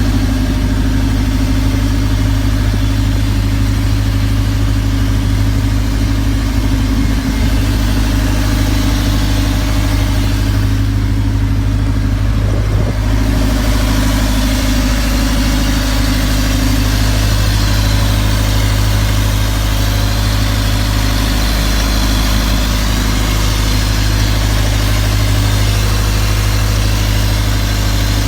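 Isuzu D-Max 3.0-litre four-cylinder diesel engine, newly fitted in a speedboat, idling steadily while it is run in.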